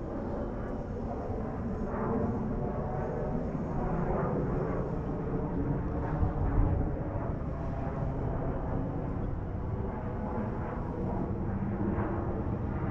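A steady low rumble, swelling slightly a few seconds in.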